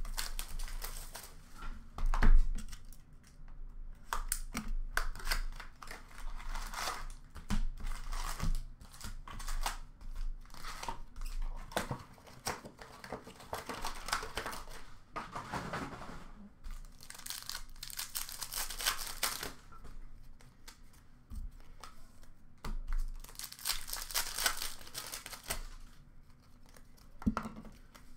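Trading-card hobby box being opened and its card packs torn open by hand: irregular tearing and crinkling of pack wrappers and rustling cardboard, with a few knocks from the box, the loudest about two seconds in.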